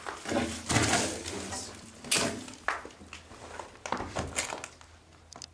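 A few short knocks and scrapes, loudest about a second in and just after two seconds, with smaller ones later that fade toward the end.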